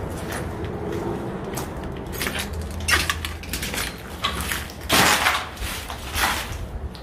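Footsteps and scuffs on loose rubble and debris, with short crunches and scrapes; the loudest comes about five seconds in, others about three and six seconds in. A low rumble, likely handling of the camera, runs underneath.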